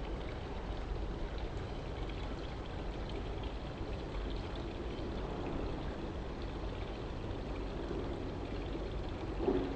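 Steady rushing background noise with a low rumble, and one brief louder sound about nine and a half seconds in.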